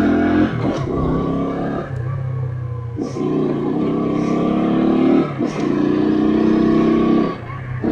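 Shineray Jet 50cc motorcycle engine running through its original exhaust while riding, held at steady high revs in two long pulls that ease off briefly about five seconds in and again near the end.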